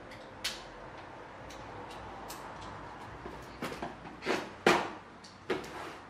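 Hands handling a large cardboard shipping box to open it: a single tap about half a second in, then a cluster of sharp scrapes and knocks of cardboard and packing tape from about three and a half seconds in.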